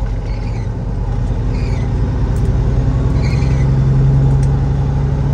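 Semi truck's diesel engine running, heard from inside the cab, its steady hum swelling a little in the middle. A few faint short squeaks come about every second and a half.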